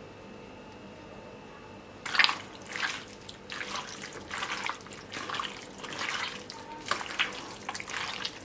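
Wet squelching as chicken pieces are mixed by hand through a yogurt and spice marinade, in quick irregular bursts starting about two seconds in.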